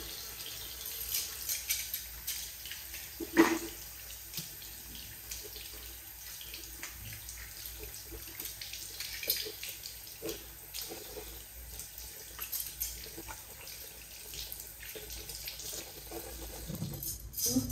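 Bathroom basin tap running in a thin stream, with water splashing as hands are rubbed and rinsed under it.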